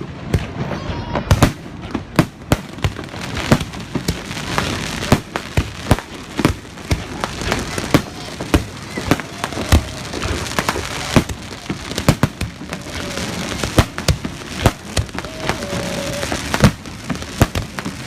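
Aerial fireworks going off: a rapid, irregular series of sharp bangs, several a second, with crackling in between.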